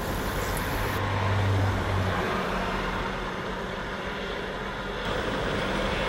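Steady background road-traffic noise with a low engine hum that swells between about one and two seconds in; no bird calls stand out.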